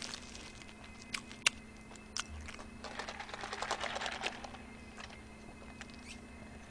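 Close-miked eating sounds: scattered soft chewing and mouth clicks, with a denser crackly rustle about three seconds in from the burger's foil-paper wrapper. A low steady hum runs underneath.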